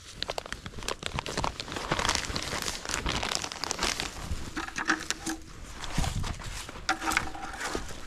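Blue plastic maple sap collection bag crinkling and rustling as gloved hands handle it and hang it back on the tree's tap.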